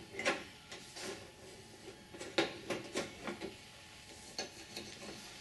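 Thin aluminium sheet-metal parts being handled and slid together: a rudder horn rib slipping inside the aluminium rudder skin, with a scatter of light clicks, taps and scrapes.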